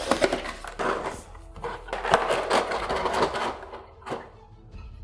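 Packaging being handled and pulled open by hand: a few seconds of irregular rustling and crinkling that dies away about three and a half seconds in, with one last short rustle just after four seconds.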